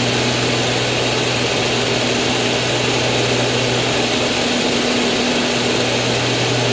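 Steady drone of a Pitts S-2B aerobatic biplane's six-cylinder Lycoming engine and propeller, a low hum under a loud, even rushing hiss.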